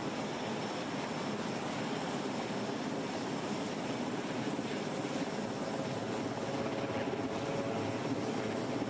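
Aircraft engines running with a steady, unbroken noise.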